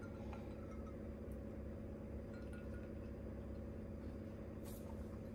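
Quiet room tone with a steady low hum. Near the start, ice faintly clinks against a drinking glass as a drink is sipped, and there is a faint tick near the end.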